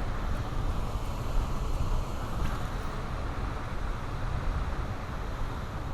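Steady rushing of water pouring over a river spillway, with wind rumbling on the microphone.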